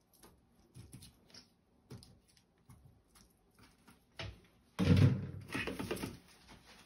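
Boiled baby potatoes knocking softly as they drop from a plastic colander onto a metal baking tray and are pushed into place, then a louder clatter about five seconds in, lasting a little over a second, as the plastic colander is set down in the stainless steel sink.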